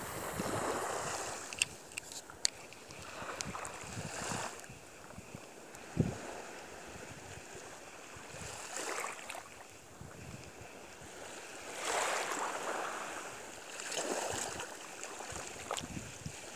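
Wind gusting on the microphone with water lapping, swelling and fading every few seconds, with a few light clicks early on and a single knock about six seconds in.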